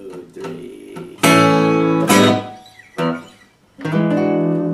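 Steel-string acoustic guitar fingerpicked in a blues style: quiet plucked notes, then several loud ringing chords struck from about a second in, the last one held.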